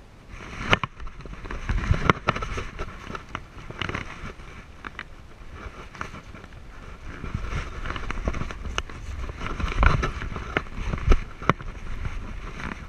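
Movement noise from a camera strapped to a walking dog: irregular clicks, knocks and scrapes of the mount and of the dog's fur and the dry brush rubbing past, with paws on gravel. The loudest knocks come around 2 s, 10 s and 11 s in.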